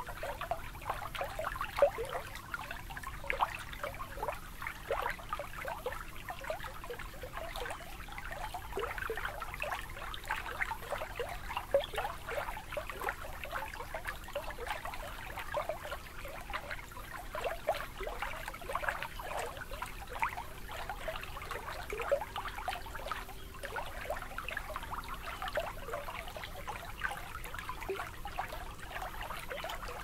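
Water lapping and trickling at the shoreline: a constant patter of small splashes and gurgles.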